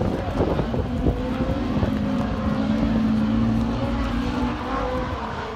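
Rallycross race car engines running on the circuit at a distance: an engine drone that holds and shifts in pitch as the cars lap.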